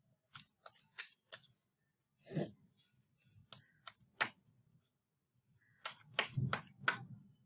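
Deck of cards being hand-shuffled, small packets lifted off and dropped back onto the pack, giving runs of soft quick clicks in three bursts.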